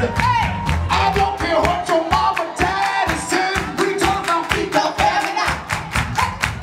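Funk music with a steady drum beat and a singer's voice carrying the melody over it.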